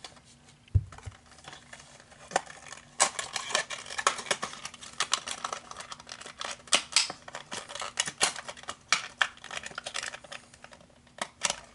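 A 1:64 diecast car's windowed cardboard box and plastic tray being worked open by hand: a dense run of clicks, crinkles and rattles, with a low thump about a second in. The packaging is hard to get open.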